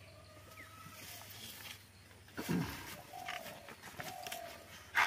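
Taro plants being cut at the base with a hand blade: a single chop about halfway through. Faint drawn-out animal calls sound now and then.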